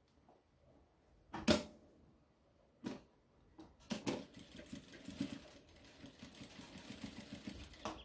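Sun Special industrial straight-stitch sewing machine stitching a short seam across a fabric strap: a fast, even run of needle ticks starting about four seconds in, after two brief clicks as the fabric is set in place.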